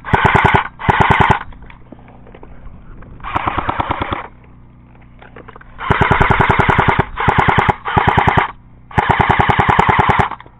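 Airsoft rifle firing on full auto: about seven bursts of rapid, evenly spaced shots, each lasting from half a second to just over a second, with short gaps between them.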